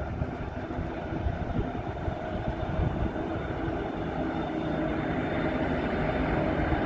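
TT class diesel-electric locomotive hauling a freight train toward the listener. Its engine drone and the rumble of the train grow steadily louder as it approaches.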